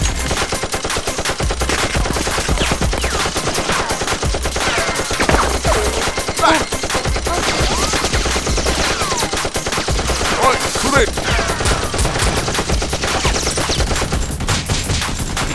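Rapid, continuous automatic gunfire sound effects, dense and steady, standing in for the Nerf blasters being fired.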